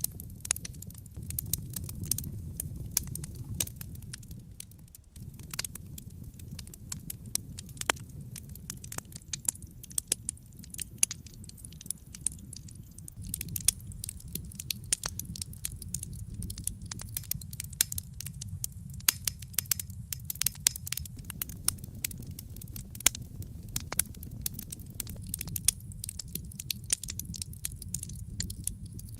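Wood fire burning, with sharp irregular crackles and pops over a steady low rumble of the flames.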